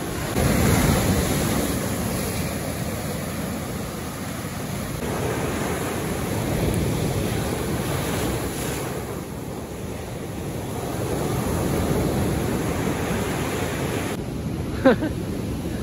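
Ocean surf breaking on a sandy, rocky beach, the wash swelling and ebbing every few seconds, with wind buffeting the microphone. Near the end there is one brief, sharp sound that falls in pitch, louder than the surf.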